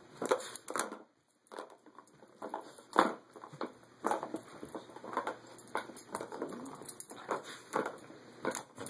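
Boston terrier nosing and pawing a plastic cat track-ball toy: irregular clicks and knocks from the ball and the plastic track, with a short pause about a second in.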